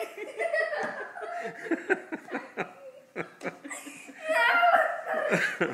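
People laughing in repeated short bursts, loudest and highest a little past four seconds in.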